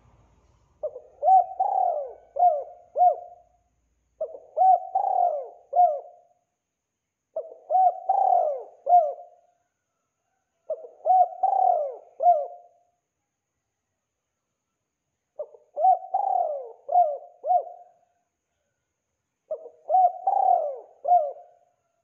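Spotted dove cooing: six phrases of several short coos each, a few seconds apart, with silence between them.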